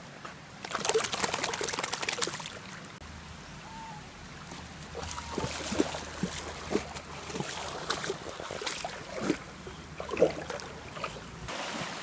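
A Dogue de Bordeaux puppy splashing through a shallow stream, water sloshing around it, heaviest about a second in, then smaller splashes over the trickle of the current.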